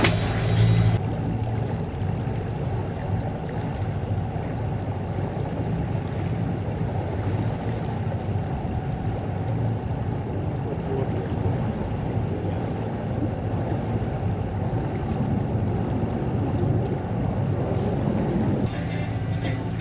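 Wind buffeting the microphone over the rush of sea water along a sailboat's hull, a steady low rushing noise. Music is heard briefly at the very start and again near the end.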